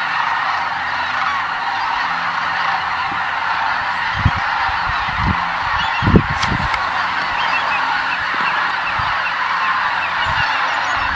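Dense, steady chorus of many overlapping calls from a large flock of cranes and geese in flight. A few low thumps sound between about four and six and a half seconds in, the loudest just after six seconds.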